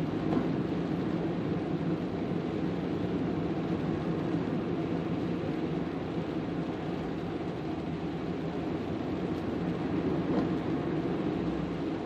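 Rain falling steadily, a constant rushing noise without pause.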